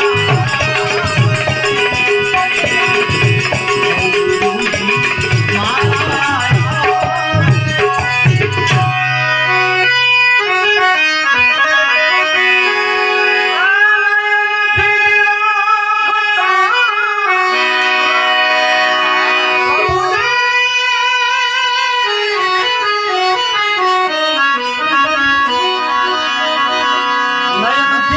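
Devotional bhajan music: a harmonium playing chords and melody over tabla. The drums drop out about nine seconds in, leaving the harmonium holding sustained chords, with a few sliding melodic lines.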